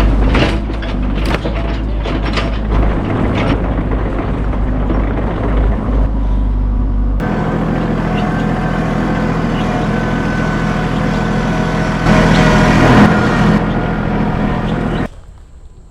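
Engine of heavy machinery running under load while clearing a dead tree, with repeated knocks and cracks in the first half. About seven seconds in the sound changes abruptly to a steadier engine note, which swells briefly near the end and then cuts off suddenly about a second before the end.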